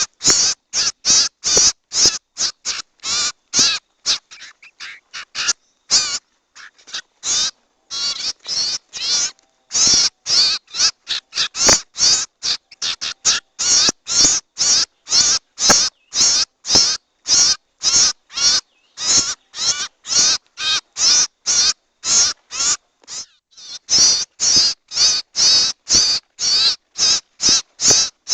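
A bird-lure recording of harsh, rasping bird calls repeated about twice a second, with a few seconds of fainter, sparser calls early on. It is played to draw in cipou and sirtu birds and is tagged as the calls of young sirtu birds.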